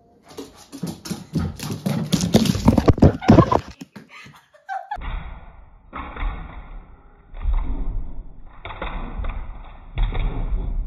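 A jumble of clattering and rustling, then from about five seconds in, a series of irregular dull thumps and knocks on a wooden floor.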